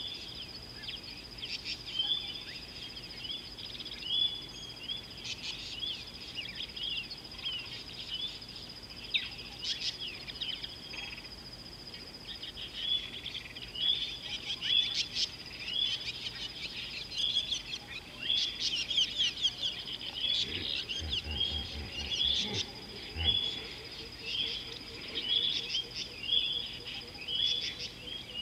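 Outdoor bush ambience: a bird repeats a short, high call over and over, about one to two a second, over a steady high whine. A few low thumps come about three-quarters of the way through.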